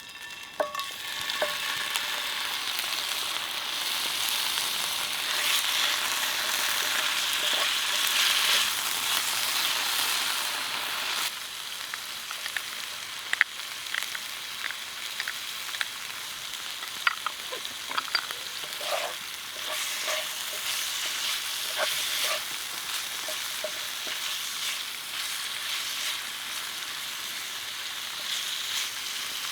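Food frying and sizzling in a pan over a wood fire, with scattered clicks and scrapes from stirring. The sizzle drops a step about eleven seconds in.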